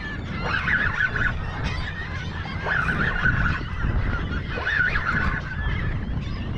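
A large flock of seabirds calling over a school of feeding fish: many short, overlapping squawks in repeated clusters, over steady wind and water noise.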